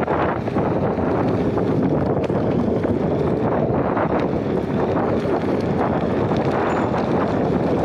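Wind buffeting the microphone, a steady loud rush with no clear tone.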